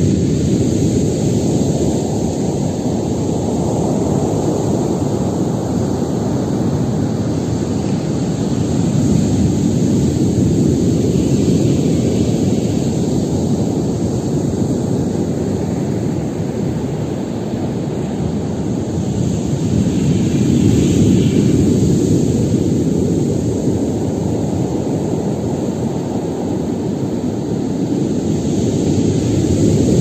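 Stormy Black Sea surf: waves breaking in a continuous deep roar, swelling to louder surges about every ten seconds and then easing.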